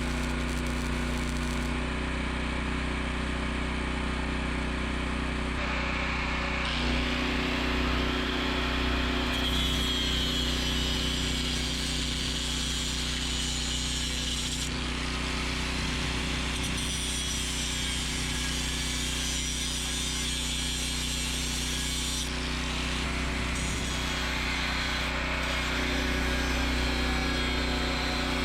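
Electric power tool working steel, its motor whine wavering as it bites, over the steady hum of a running portable generator.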